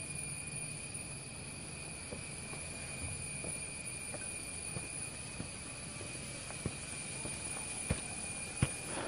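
Steady chorus of forest insects, several high pitches held without a break. A few light knocks come near the end.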